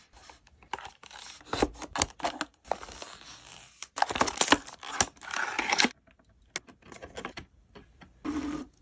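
Hands unboxing a small diecast model car: packaging being handled, with quick clicks, rustles and scrapes, busiest in a dense stretch about four seconds in.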